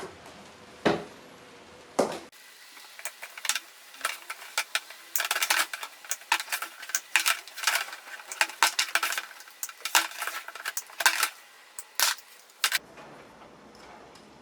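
Small metal parts clinking and rattling as they are handled, in quick irregular clicks. The clicks are scattered at first, come thick and fast from about three seconds in, and stop abruptly near the end.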